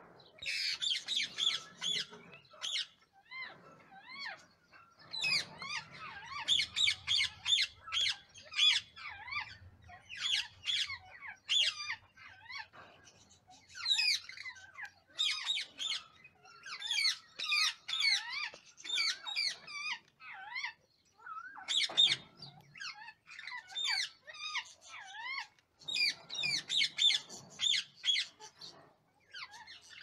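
Rose-ringed parakeets giving rapid, high, squeaky begging calls in bursts of a second or two, while being offered formula food.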